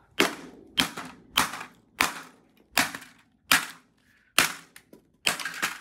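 A VHS cassette's plastic shell being smashed on a carpeted floor with repeated blows, about eight sharp cracks in a row, roughly one every three quarters of a second, as the casing breaks apart.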